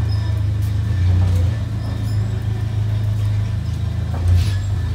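Forklift engine running with a steady low drone while carrying a heavy load, swelling briefly a couple of times.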